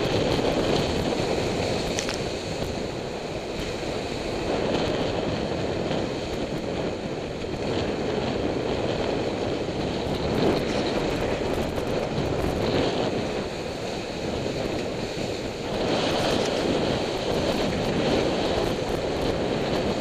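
Wind buffeting the microphone and water rushing and splashing past the hulls of a Corsair F31 trimaran sailing fast in a strong breeze, a steady noise that rises and falls with the gusts and spray.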